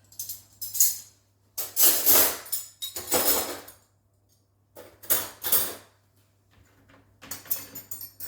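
Clean dishes and cutlery clinking and clattering as they are lifted out of a dishwasher and put away, in about five bursts with short pauses between.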